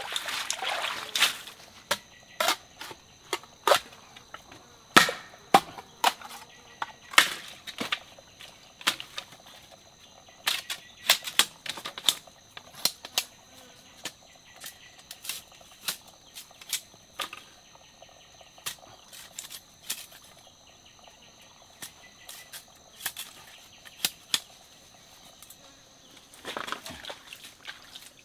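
Water and stones being shifted by hand in a shallow stream for about the first second, then sharp, irregular knocks and cracks of a jungle knife chopping wood, about one a second, over a faint, steady, high insect drone.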